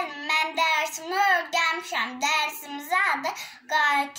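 A young girl singing unaccompanied, holding short steady notes one after another.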